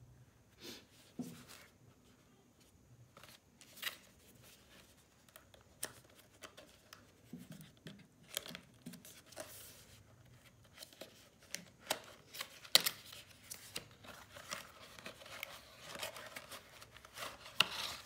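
Hands opening a small cardboard retail box: scattered clicks, scrapes and rustles as the tuck flap is pried open and the plastic hard drive enclosure is slid out. The handling gets busier in the second half, with the sharpest snap about two-thirds of the way in.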